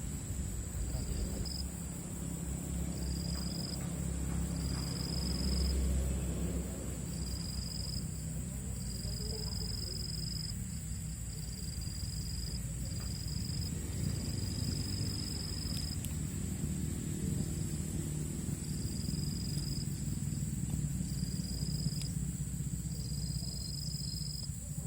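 Insects calling: a steady high-pitched drone, with a second insect's short buzzing calls repeated every second or two, over a low steady rumble.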